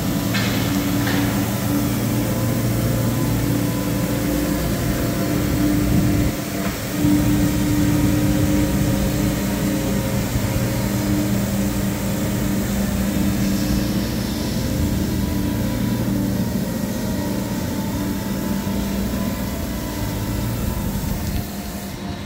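Fiori D100 water truck's diesel engine running steadily as it drives slowly across the yard, with the hiss of its water spray over the engine.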